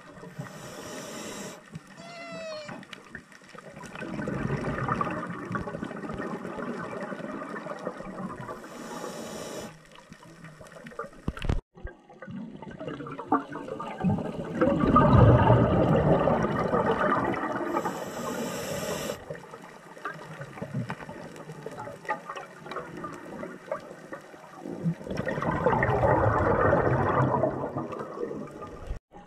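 Scuba diver breathing through a regulator, recorded underwater: a short hissing inhale followed by a long bubbling exhale, about three breaths.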